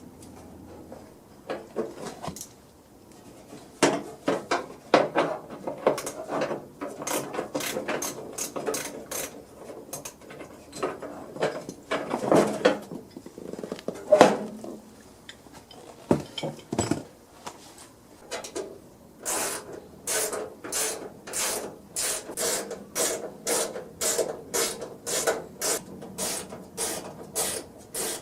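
Ratchet wrench clicking as it is worked, irregular at first, then in an even run of strokes at about two to three a second for the last third.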